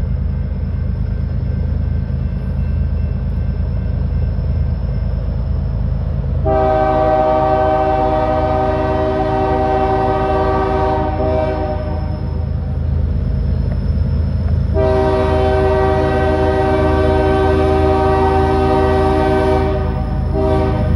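Approaching diesel freight locomotive sounding its multi-chime air horn over a steady low rumble: a long blast beginning about six seconds in, a second long blast, then a short one near the end, the opening of the grade-crossing horn pattern.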